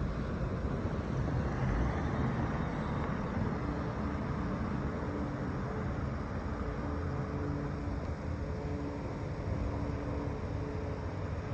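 Steady low rumble of road traffic noise. Faint held tones come and go from a few seconds in.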